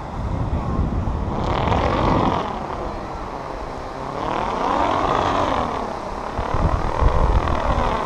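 Radio-controlled bird-shaped model plane buzzing past overhead three times, its propeller whine rising and falling in pitch with each pass. Wind rumbles on the microphone throughout.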